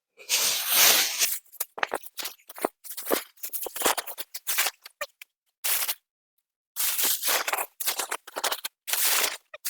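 Irregular rustling and rubbing in short bursts with brief gaps: something being handled and rubbed to warm up against the cold.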